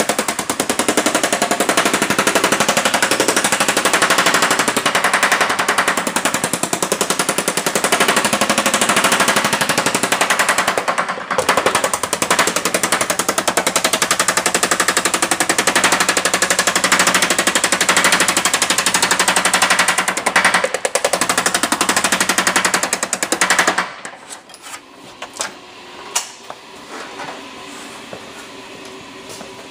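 Yoder power hammer pounding a 3003 aluminum panel with rapid, continuous blows, shrinking the metal between its dies. There is a brief pause about 11 seconds in. The hammering stops suddenly about 24 seconds in, leaving a few lighter knocks.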